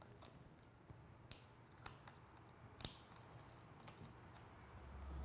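Faint, scattered clicks and small taps from a Peak Design Dual Plate being seated on a camera's base and tightened with an Allen key, the sharpest click about three seconds in. A low rumble swells near the end.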